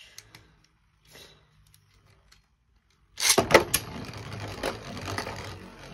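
Beyblade spinning tops in a plastic stadium: a few light clicks of handling the launcher, then about three seconds in a top is ripped from its ripcord launcher. It lands with a sudden loud clatter, then spins on the plastic with a steady scraping and repeated clicking knocks.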